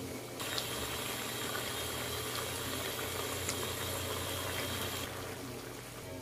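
Crabs and squash in coconut milk simmering in a wok, a steady bubbling hiss with scattered small pops over a low steady hum; the hiss eases a little about five seconds in.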